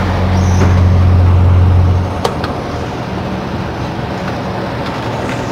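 Cement mixer truck's diesel engine running, a steady low hum with mechanical noise; the hum drops in level about two seconds in, and there is one sharp click just after.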